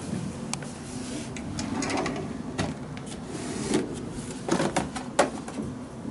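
A cabinet drawer sliding open and stacked plastic wash basins knocking together as one is lifted out: a string of separate clicks and knocks, the loudest a little past the middle.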